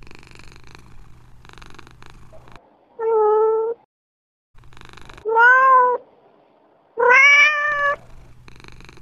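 Domestic cat purring, then meowing three times about two seconds apart, the second meow rising and falling in pitch. The purring comes back near the end.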